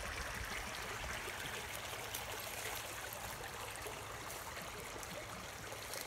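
Creek water rushing steadily over rocks, running fast and high after heavy rain.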